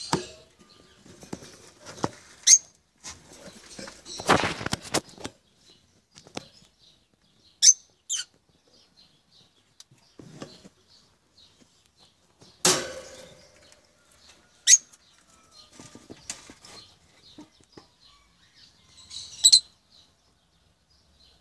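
Peach-faced lovebirds giving short, shrill chirps every few seconds, about six in all. There are also two longer noisy rustling bursts, the first about four seconds in and the second about thirteen seconds in.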